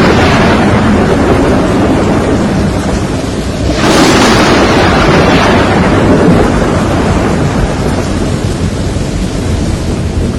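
Thunderstorm: a sudden crash of thunder about four seconds in that rolls and fades over several seconds, over a steady rush of heavy rain.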